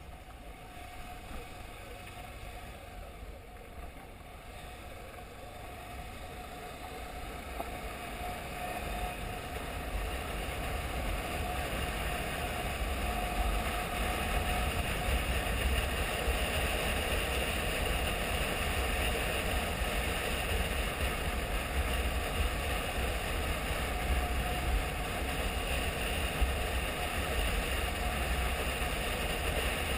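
Honda XRE 300 single-cylinder motorcycle engine running under way on a dirt road, mixed with wind and road rumble. The sound grows louder over the first dozen seconds or so, then holds steady.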